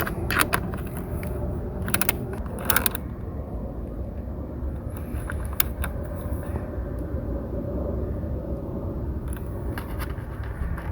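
Hand wrench tightening a battery cable terminal nut: short spells of metallic clicks and scrapes, several in quick succession about two seconds in and a few more near the end, over a steady low background rumble.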